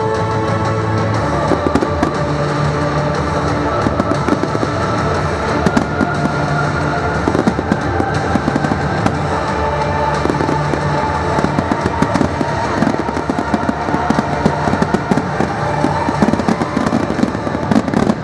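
Firework display: rapid bangs and crackling bursts over the show's loud music soundtrack, the bursts growing denser in the second half.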